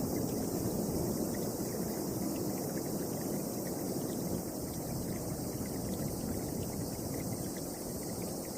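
Strong storm wind blowing, a steady low rush that holds without pause.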